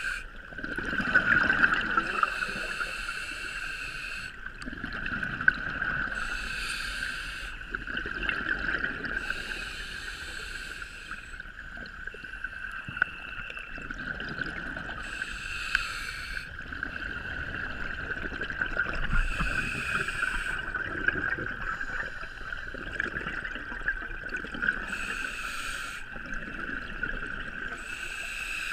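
A scuba diver breathing through a regulator, heard through an underwater camera housing: a hiss on each inhale alternating with the rumble of exhaled bubbles, about one breath every three to four seconds. A steady high-pitched whine runs underneath throughout.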